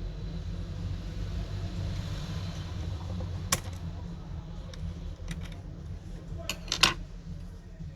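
A few sharp clicks and taps from small tools working on an opened iPhone 6, the loudest pair near the end, over a steady low hum.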